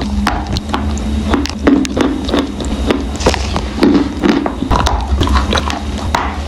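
Close-up crunching and chewing of dry edible clay, with sharp irregular crunches several times a second.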